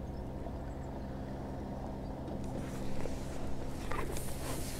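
A faint, steady low drone of a distant motor. Near the end there is a light rustle and a few small clicks as the fishing pole is handled.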